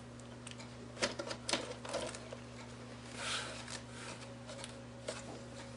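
A few light clicks and taps from a hand handling the plastic back casing of an LCD monitor, about a second, a second and a half and two seconds in, over a steady low electrical hum.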